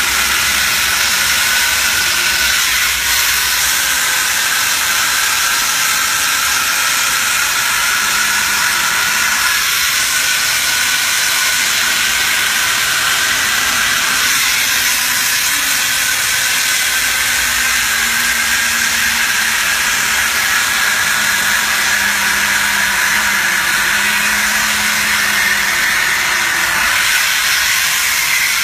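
Handheld stripping tool working a stack of die-cut board sheets to shake out the cut-away waste: a loud, steady hiss with a faint whine that slowly rises in pitch.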